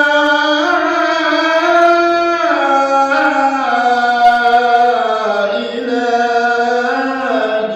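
Male voice chanting a religious supplication, one long melismatic phrase of held, sliding notes, fading out near the end.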